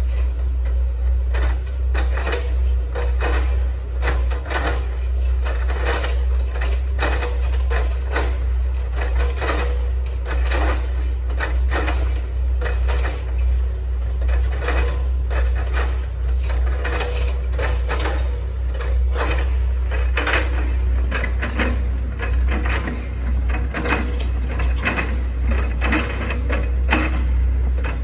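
Hitachi ZX110 MF excavator's diesel engine running with a steady low drone, under a dense run of irregular cracks and crunches from the machine chopping through oil palm trunk.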